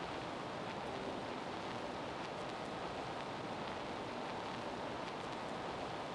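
Steady, even rushing noise with no change in level and no speech or music.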